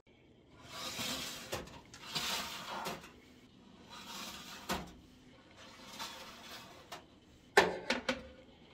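Stainless-steel mesh dehydrator trays sliding into the rack slots of a Cosori food dehydrator: several scraping swishes, a knock about halfway through, and a loud burst of metal clattering near the end as a tray seats.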